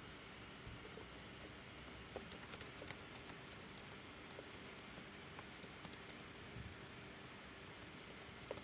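Faint runs of quick, light clicks over a steady hiss: one cluster about two seconds in and another near the end.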